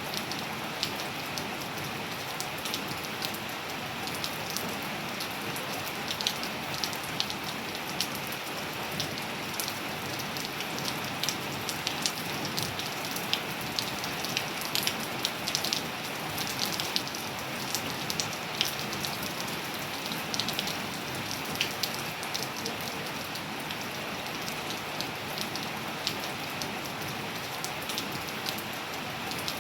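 Steady rain falling, with many sharp, close drop impacts ticking out above the hiss. The impacts come thickest in the middle stretch.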